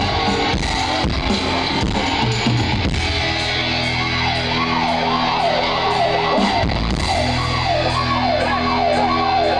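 Live heavy metal band playing loudly: distorted electric guitar riffing over drums. From about four seconds in, a high line wavers rapidly up and down over the riff.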